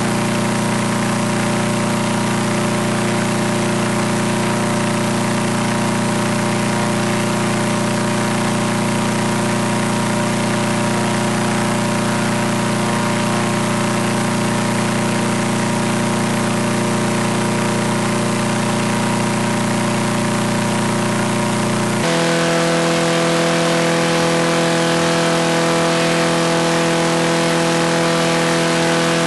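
Harbor Freight 212cc Predator single-cylinder four-stroke engine turning a direct-drive 36x10 paramotor propeller, running steadily at high revs on a static thrust test. About three quarters of the way in, the note steps abruptly to a higher pitch and gets slightly louder.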